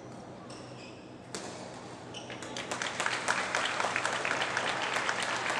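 A single sharp hit about a second and a half in, then spectators in a badminton hall clapping, the applause starting about two and a half seconds in and growing louder.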